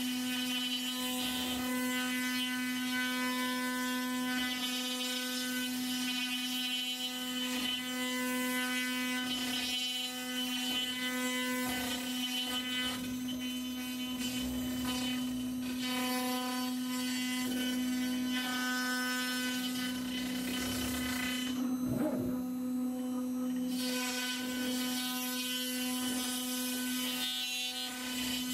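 Onefinity Elite Foreman CNC router cutting wood: the spindle runs with a steady whine while the bit carves. For about two seconds near the end the cutting hiss drops away and only the spindle tone carries on.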